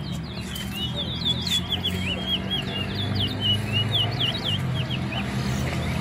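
Caged towa-towa finch singing a fast, continuous run of short, sweeping whistled notes, which stops about five seconds in. A low steady hum runs underneath.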